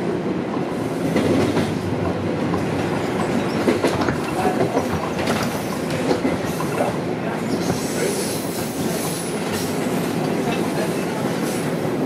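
Toronto Rocket subway train running, heard from inside the car: a steady rumble of wheels on rail with irregular clicks over rail joints, and a high wheel squeal for about two seconds around eight seconds in.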